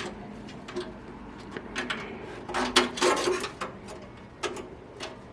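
Thin stamped-metal IO shield being pushed and snapped into the PC case's rear opening: a string of irregular light metallic clicks and knocks, the loudest a little under three seconds in.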